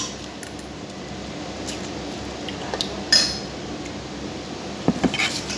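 Cutlery clinking against plates and a bowl in a few sharp knocks, the loudest about three seconds in and a small cluster near the end.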